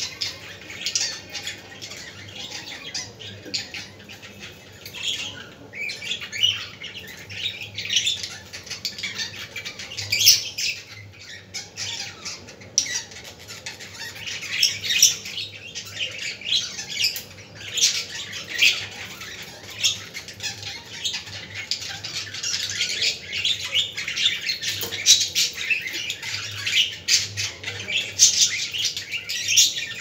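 Several budgerigars chattering: many short, high chirps and squawks overlapping without a break.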